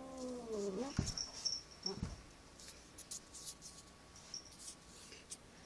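Agitated cat's drawn-out yowl, rising then falling in pitch and ending about a second in. It is followed by two dull thumps and light scattered clicks.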